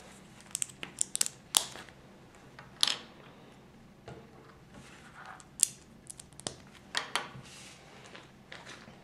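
Plastic Lego pieces clicking and tapping as they are pressed together by hand and set down on a wooden table: a string of short, sharp clicks, the loudest about a second and a half in and again a little after five and a half seconds.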